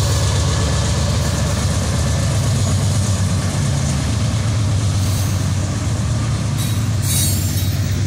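BNSF diesel freight locomotives passing close by with a steady low engine rumble, then covered hopper cars rolling past on the rails, with bursts of high wheel-on-rail noise near the end.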